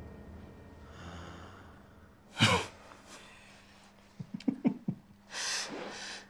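A man snickering to himself: a sharp snort of breath through the nose, then a quick run of low, short chuckles, then two breathy laughs near the end.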